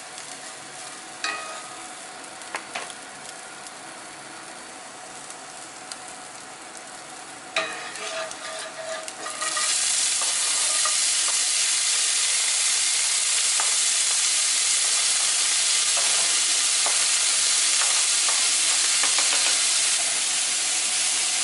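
Bacon bits sizzling gently in a hot cast-iron skillet, with a few knocks of a wooden spatula against the pan. About nine seconds in, diced onion and frozen peppers are scraped in and a much louder, steady sizzle takes over as they start to fry.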